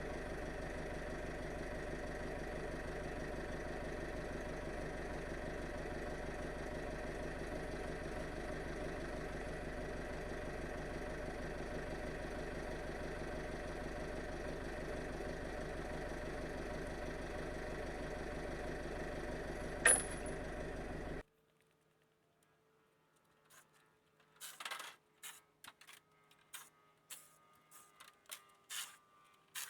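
An engine running steadily at idle, with a sharp click just before it cuts off abruptly about two-thirds of the way through. Then scattered light clacks and knocks, like wood being handled.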